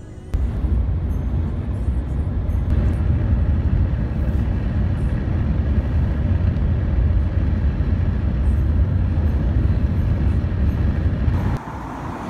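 Road and wind noise inside a moving car: a loud, fluttering low rumble. It drops off suddenly near the end.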